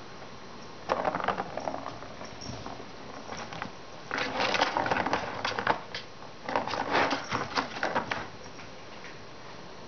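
A ball rattling as it rolls around a hard plastic circular track toy, batted by a kitten. It comes in three bursts of clattering: a short one about a second in, then two longer runs in the second half.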